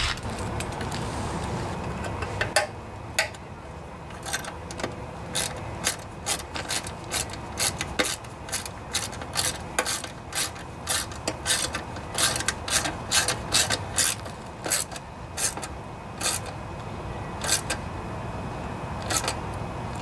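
Socket ratchet wrench clicking in quick, uneven runs as bolts are run down on a Briggs & Stratton lawnmower engine, starting a couple of seconds in.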